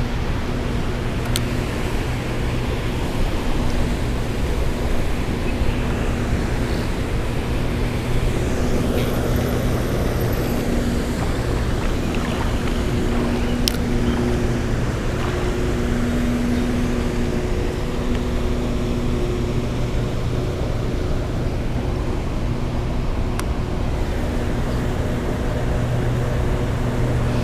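Loud, steady rush of water pouring through a spillway, with a low hum that comes and goes underneath.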